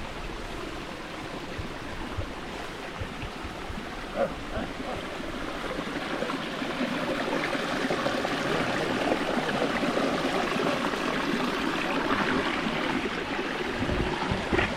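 Water of a stream flowing steadily, growing louder about halfway through.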